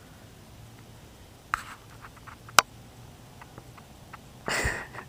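Faint scattered clicks and ticks, with one sharp click about two and a half seconds in and a short rustle near the end: handling noise as the camera is moved over the bedding.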